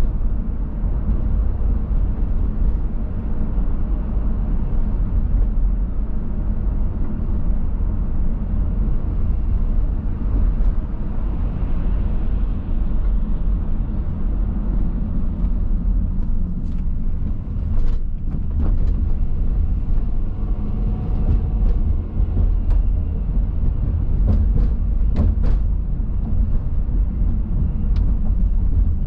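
A car driving along a city street: a steady low rumble of engine, tyre and road noise. A few sharp clicks come in the second half.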